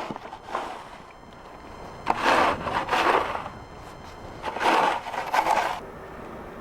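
Two long scraping strokes, each a little over a second, the first about two seconds in and the second near the end.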